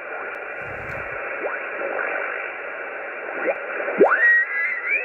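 Yaesu HF transceiver's receiver audio on an amateur band: a hiss of band noise with whistles of signals rising in pitch as they slide through, as when the dial is tuned across the band. Near the end one whistle rises and holds as a steady tone.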